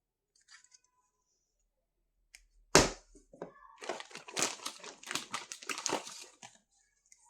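Packaging being handled and torn open: one sharp crack about three seconds in, then about three seconds of dense crinkling and tearing.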